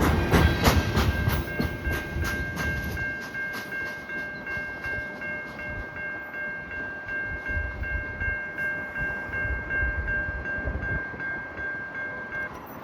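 CN freight train cars rolling past, the wheels clicking rhythmically over the rail joints, with a steady high-pitched wheel squeal that stops near the end.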